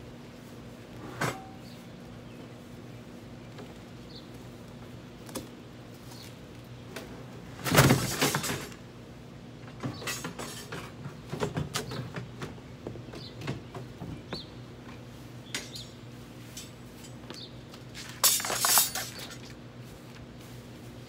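Handling noise as a Honda HRX217 lawn mower is lifted out of its cardboard shipping box and the empty box is stood on end on concrete: scattered knocks and clatter, with two louder scraping bursts, one about eight seconds in and one near the end.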